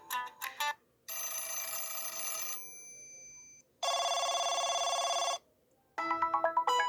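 Stock Android 8.1 ringtones and notification tones played one after another: the end of a plucked melody, a shimmering chime that fades out, a buzzing electronic ring trill about a second and a half long, and near the end a new melodic ringtone begins.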